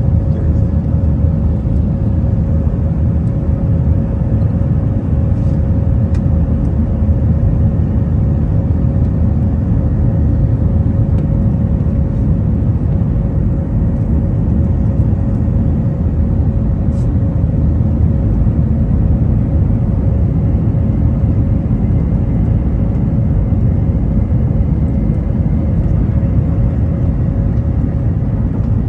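Cabin noise aboard an Airbus A319-132: a steady low rumble from the IAE V2500 turbofan engines and airframe, with a constant hum tone above it and no rise or change in loudness.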